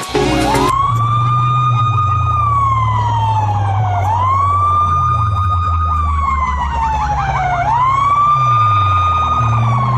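Siren sound effect played loud through DJ sound-box speakers: after music cuts off in the first second, a wail that rises, holds and slowly falls repeats about every three and a half seconds over a heavy pulsing bass.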